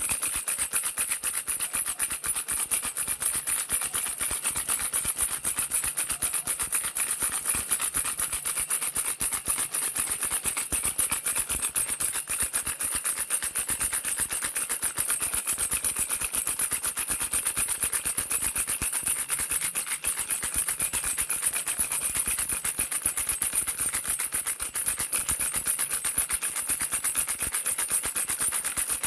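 Baby rattle shaken without pause, a fast, even stream of bright clicks.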